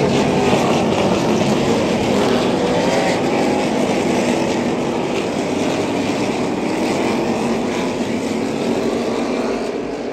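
Loud, steady engine noise that begins abruptly and eases off a little near the end.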